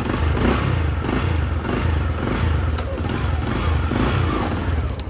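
Bajaj Discover 100 motorcycle's single-cylinder four-stroke engine idling steadily, with a couple of light clicks, one about three seconds in and one near the end. No clutch squeal: the sign that the new clutch discs and fresh oil have cured the dried-out, sticking clutch.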